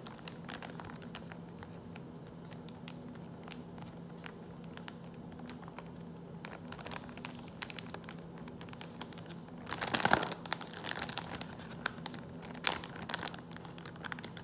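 Plastic Ziploc bag crinkling and rustling as it is handled, with scattered crackles throughout and a louder burst of rustling about ten seconds in.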